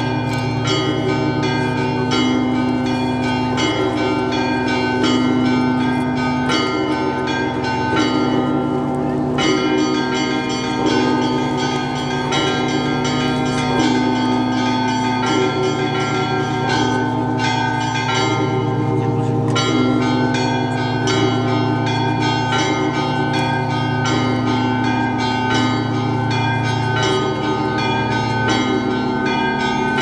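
Russian Orthodox belfry bells ringing together without a break: deep bells tolling under a rapid, unbroken pattern of small high bells struck by their clappers.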